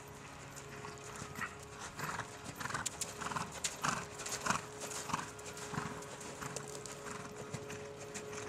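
Hoofbeats of a Hanoverian mare cantering on sand arena footing: soft, muffled strides about every two-thirds of a second, loudest in the middle.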